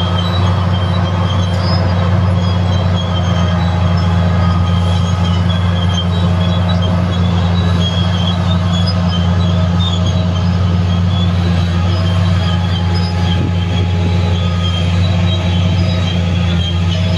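Large diesel earthmoving machines running, a Komatsu PC3000 mining shovel and a Komatsu D375 crawler dozer: a loud, steady low engine drone, with a high metallic squeal of crawler tracks coming and going over it.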